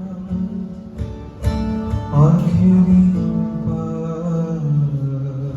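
Acoustic guitar being strummed during a sound check, with a few sharp strums about a second in and long held melody notes over the top.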